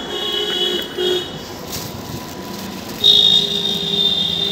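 A steady, high-pitched electronic buzzing tone. It cuts off about a second in and sounds again from about three seconds in.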